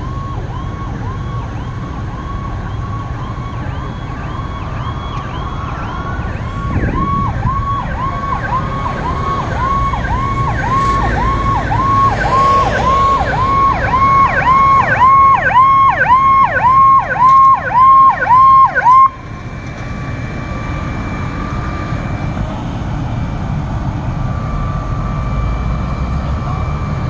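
Fire truck's electronic siren on a fast yelp: a high tone that dips and springs back about twice a second. It is faint at first, grows much louder as it nears, and cuts off suddenly about two-thirds of the way through, leaving a steady rumble of engines and traffic.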